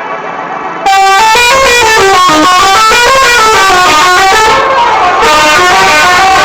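Bus telolet horn, a multi-tone musical horn, blaring very loudly as a rapid tune of notes stepping up and down in pitch, starting about a second in.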